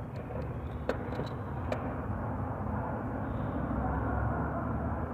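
Car engine running steadily with a low, even hum, with two or three sharp clicks about one to two seconds in.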